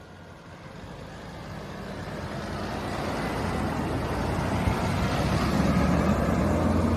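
A road vehicle approaching, its engine and tyre noise building steadily louder over several seconds.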